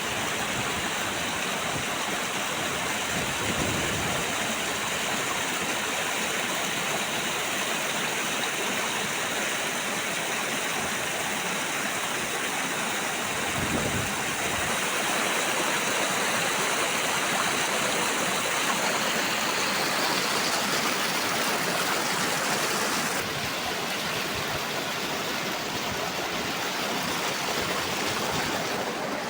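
Small waterfall: water pouring and splashing in a steady, even rush.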